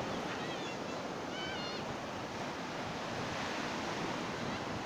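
Surf breaking on a sandy beach: a steady, even rush of waves. Two faint, wavering distant calls come through in the first two seconds.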